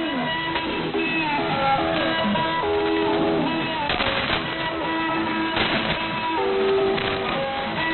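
Guitar music received off the air on an AM shortwave radio, heard thin and narrow-band with a haze of static underneath.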